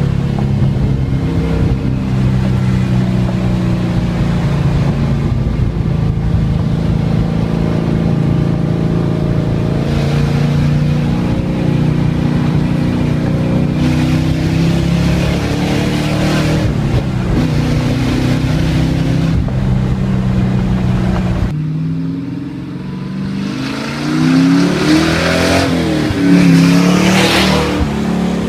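1971 Chevrolet C10's 454 big-block V8 running with a steady note, then revving several times near the end, its pitch rising and falling.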